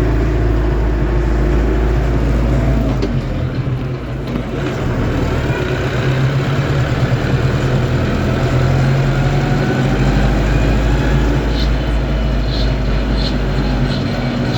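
Lovol M504 diesel tractor driving above 25 km/h: engine running with a whine from the gearbox over it, a noise of unknown cause. The engine sound drops briefly about four seconds in, and a few light clicks come near the end.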